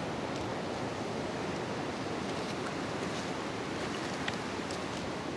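Steady rush of river water running over gravel shallows, with a few faint ticks.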